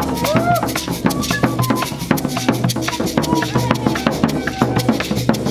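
Live Brazilian folk percussion: an alfaia bass drum with gourd shakers and a metal ganzá shaker keeps a fast, even groove. Over it, a pífano (cane fife) plays held notes.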